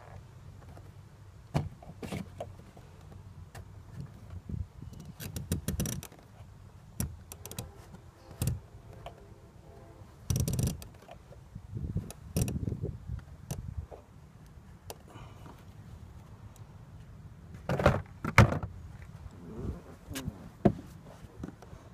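Hands working on a new fuel pump unit's plastic flange, fuel lines and electrical connector, making scattered clicks, knocks and rustles as the parts are pushed into place, with a few louder knocks in the last few seconds.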